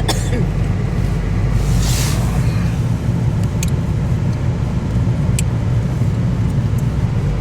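Steady low rumble of a car driving on a snowy road, heard from inside the cabin, with a brief hiss about two seconds in.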